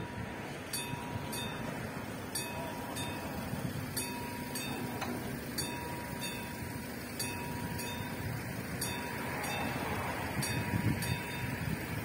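Railway level-crossing warning bell ringing in short, repeated strokes, about two a second, while the crossing is closing for an approaching train.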